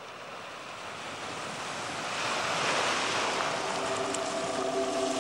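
Steady rushing noise of an indoor swimming-pool hall, growing louder over the first few seconds, joined about three and a half seconds in by a steady hum of several tones.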